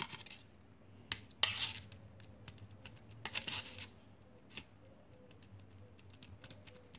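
Plastic fork stirring and scraping sticky glitter-glue-and-laundry-detergent slime on a plate: faint scattered clicks and taps, with short scrapes about one and a half seconds in and again a little after three seconds.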